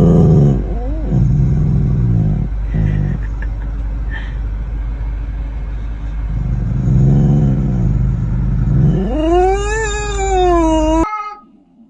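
A cat caterwauling: a long, low growling rumble with short pauses, then about nine seconds in a drawn-out yowl that rises and falls in pitch and cuts off suddenly.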